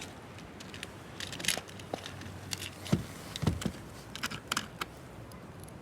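Scattered small metallic clicks and clinks, with two duller knocks about three and three and a half seconds in.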